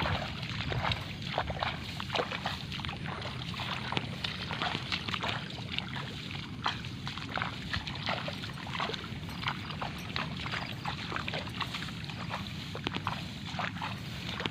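Wading through a wet rice paddy: irregular sloshing and rustling steps in water and mud, over a steady low rumble.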